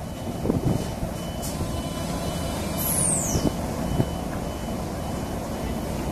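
Class 33 diesel locomotive's Sulzer eight-cylinder engine running as the locomotive moves slowly along the track. Its low rumble is broken by a few knocks, and a brief high falling squeal comes about halfway through.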